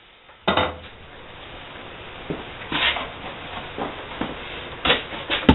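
A knock as a tool is set down on a wooden workbench about half a second in, then scattered handling noises as a wooden panel is fetched, with a sharp click near the end.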